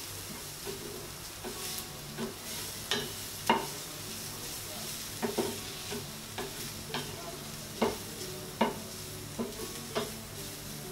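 Wooden spatula stirring and scraping diced vegetables around a stainless steel pan as they sauté in oil with a light sizzle. The scrapes come irregularly, roughly one or two a second, the loudest about three and a half seconds in.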